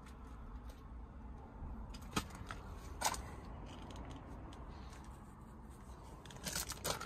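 Quiet handling noise from a handheld phone being moved around inside a car, over a low steady rumble, with a sharp click about two seconds in, another about three seconds in, and a run of clicks and rustling near the end.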